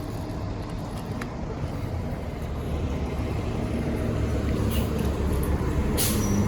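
Transit bus engine running and growing steadily louder as the bus draws in, with a short hiss near the end.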